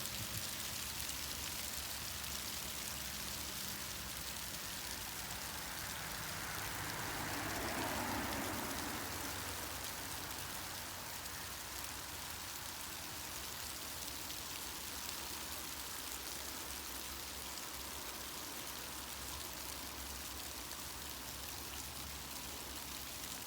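Hail falling steadily, a continuous dense pattering hiss. About eight seconds in, a broader whoosh swells and fades over a few seconds.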